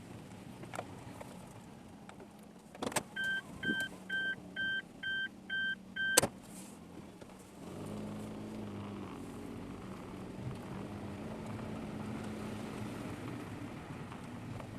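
A click, then seven evenly spaced electronic beeps, about two a second, and a sharp clunk. A car engine then starts and runs steadily at idle.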